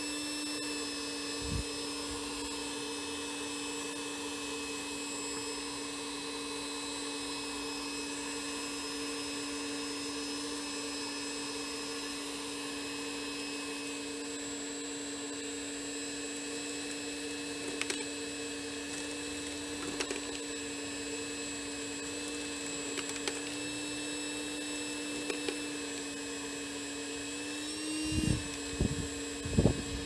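Homemade vacuum cleaner driven by a hair dryer's fan motor, running steadily: a constant hum with a thin high whine. A few short clicks come in the second half, and some low thumps near the end.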